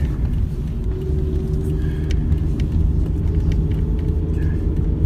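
Car being driven, with a steady low rumble of engine and road noise.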